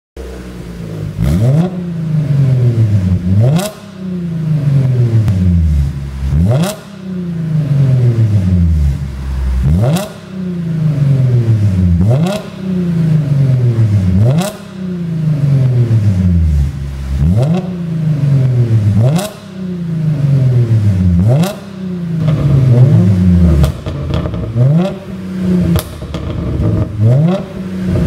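Audi A7 50 TFSI supercharged V6 revved about a dozen times in a row, each quick rise in engine speed falling slowly back towards idle. Sharp pops and crackles come from the exhaust around each rev, the sound of a pop-and-crackle overrun tune.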